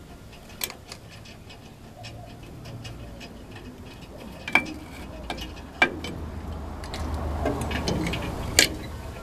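Scattered metallic clicks and clinks from a rear drum brake shoe and its return springs being worked off the backing plate by hand, a few sharp ones standing out among lighter ticks.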